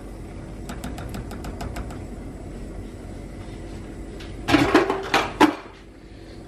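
Kitchen cookware clatter at a gas stove: a quick run of light ticks near the start, then a cluster of loud knocks with a short metallic ring about four and a half seconds in.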